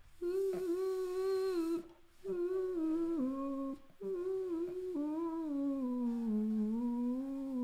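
A woman's voice doing a blowfish semi-occluded vocal tract (SOVT) exercise: lips closed and cheeks puffed, she sounds a song's melody as a hum-like tone. Three phrases, breaking about 2 and 4 seconds in, the pitch stepping down, the last one held long at a lower note, with some air hiss in the first phrase. It is practice for a vowel that loses its body in the sung line.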